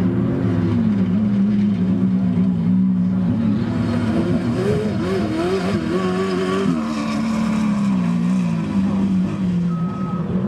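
Off-road desert race vehicle engine running, its pitch rising and falling as the revs change. A short repeating beep starts near the end.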